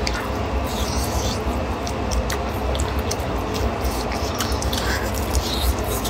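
A person chewing a beef-filled flatbread (huoshao), with short wet mouth smacks and clicks scattered through, over a steady low rumble.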